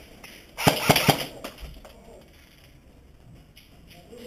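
Airsoft gun firing a quick burst of four sharp cracks, less than a second in, then quiet.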